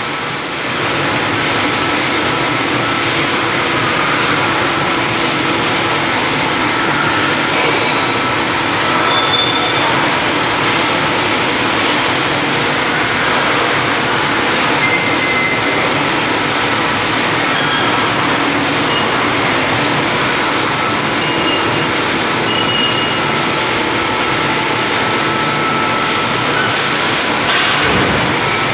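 Steady, loud din of pig slaughter-line machinery, with a few short high squeaks.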